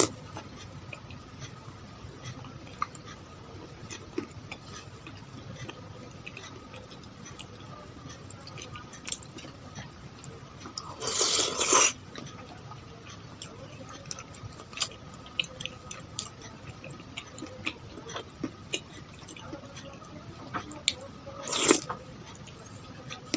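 A person eating es pisang ijo, the Indonesian green-banana shaved-ice dessert: close-up wet chewing with many small mouth clicks. Two louder, rougher bursts of about a second come near the middle and near the end.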